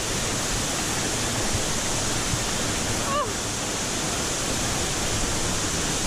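Waterfall water rushing and splashing over rocks close around the microphone: a steady, even rushing noise.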